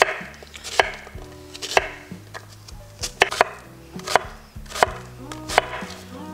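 Chef's knife dicing an onion on a wooden cutting board: about eight sharp knocks of the blade hitting the board, most under a second apart.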